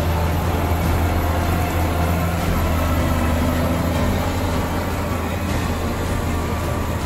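Case IH tractor's diesel engine running steadily under load, pulling a reversible plough through the soil, with a deep, even hum.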